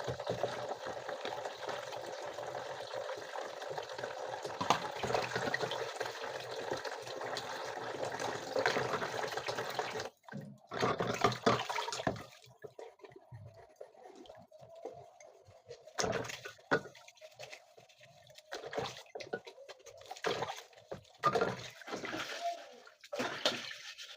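Water running steadily from a tap into a sink for about ten seconds, then cut off, followed by scattered short splashes and knocks.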